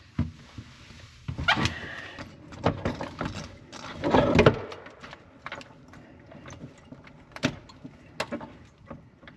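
Irregular knocks, clicks and scrapes of objects being handled, the loudest a scraping clatter about four seconds in.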